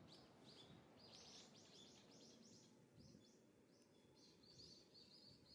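Small birds chirping in quick series of short, high notes, faint over a low, steady background rumble.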